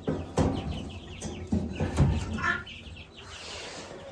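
Young chicks peeping in short, high chirps, with several sharp knocks and rattles as panels are set over their pen.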